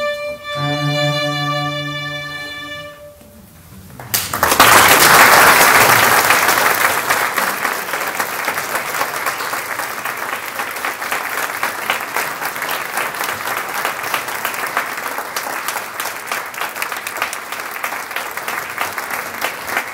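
A string trio of two violins and a cello holds its final chord, which fades away; about four seconds in the audience breaks into applause, loudest at first and then steady.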